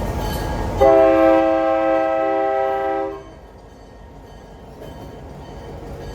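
Horn of a GP9U diesel locomotive sounding one chord-like blast of about two seconds over the train's rumble. The horn starts about a second in and cuts off sharply, and the rumble is much quieter after it.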